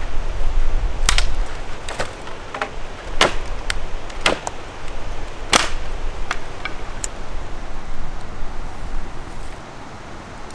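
Dry sticks being snapped by hand for firewood: sharp cracks about every half second to a second, about ten in all, stopping after about seven seconds.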